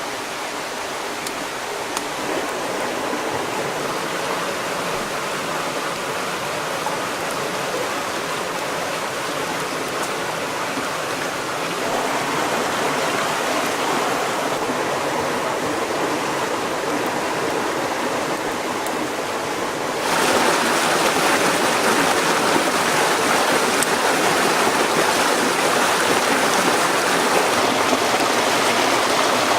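Steady rushing of a flowing river or stream, with no distinct events; it suddenly becomes louder and brighter about twenty seconds in.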